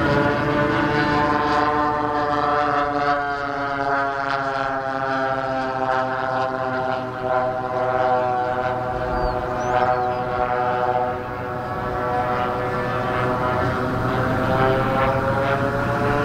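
Engines of a radio-controlled scale P-82 Twin Mustang in flight overhead: a steady propeller drone whose pitch sags through the middle and climbs again near the end as the model passes and turns.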